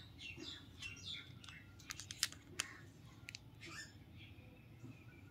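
Parakeets chirping faintly in short calls, with a few sharp clicks in the middle.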